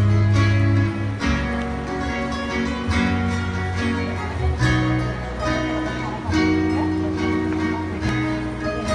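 Live church music: guitar and bass playing a hymn, with a choir's voices singing along.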